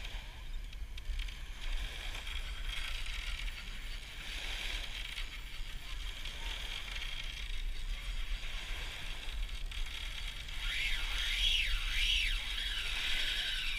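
Penn Spinfisher SSV 8500 spinning reel with its drag slipping, a steady clicking buzz as the shark pulls line off against a tight drag. It gets louder and wavers up and down in pitch for a couple of seconds near the end.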